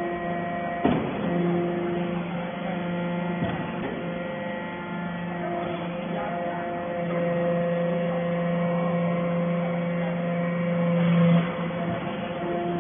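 Hydraulic metal-chip briquetting press running: a steady pump-and-motor hum made of several held tones. It grows louder for a few seconds and drops back suddenly about eleven seconds in, with a short knock about a second in.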